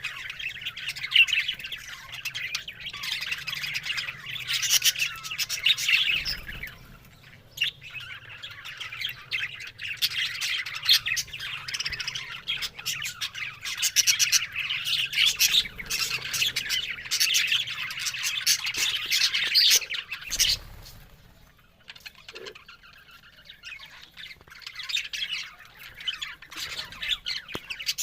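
Budgerigars chattering: a dense, continuous stream of chirps, squawks and clicks. It thins out for a few seconds about three quarters of the way through, then picks up again.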